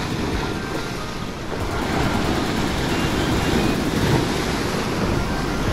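Ocean waves surging and washing over a rock ledge, a steady low rushing that swells about two seconds in, with wind buffeting the microphone.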